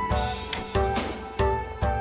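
Background music with a steady beat: heavy low drum hits about twice a second under sustained keyboard chords.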